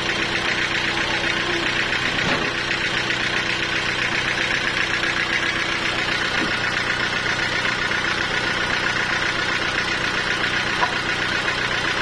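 Engine of a homemade band sawmill running steadily without load, a constant hum with a fast even beat.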